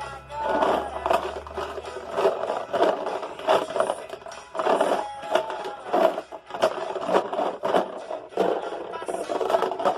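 Pebbles rattling and scraping inside a small closed box as it is shaken again and again, with a children's song playing faintly underneath.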